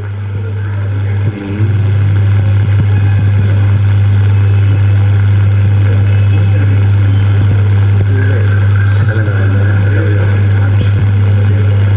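A loud, steady low hum that swells in over the first second or so and dips briefly just over a second in, with faint voices of people underneath it.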